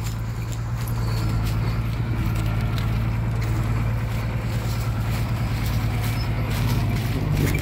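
Turbocharged diesel engine of a heavily loaded Isuzu Rocky 195 six-wheel truck running under load as it moves slowly across the field, a steady low drone.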